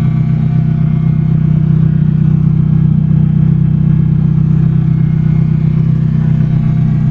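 Nissan SR20DET turbocharged 2.0-litre four-cylinder engine running at a steady idle on its first start-up after being reinstalled.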